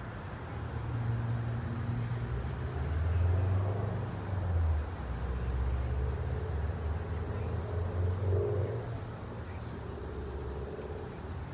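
Road traffic: car engines running and vehicles passing, a low rumble that swells a few times.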